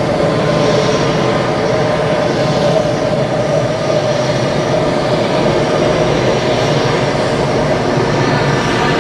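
Jet airliner engines running steadily: a continuous rush of noise with a steady mid-pitched hum through it.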